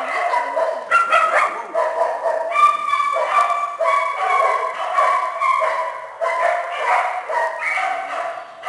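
Several small dogs barking and yipping continuously, their high calls overlapping one another.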